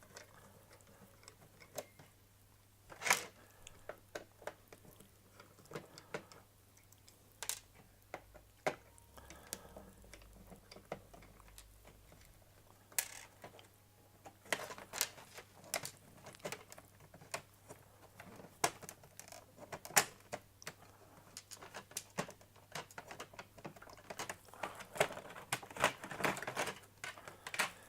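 Irregular small clicks and taps of a very small screwdriver and plastic parts as a flatbed scanner is taken apart, sparse at first and coming thicker in the second half.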